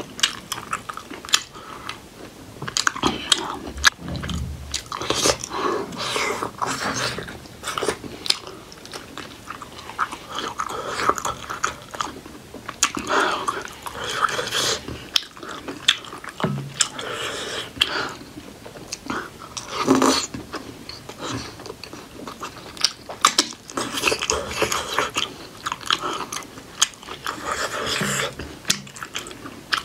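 Close-miked chewing and biting of steamed buff (water-buffalo meat) momos dipped in spicy achar, with wet mouth sounds and many sharp clicks.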